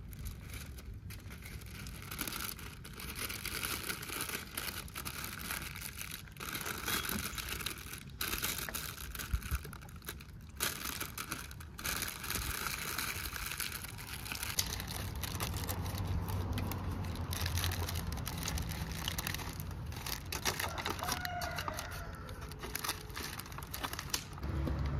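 Sheets of paper and aluminium foil crinkling and rustling as hands fold and wrap them, in a dense run of small crackles.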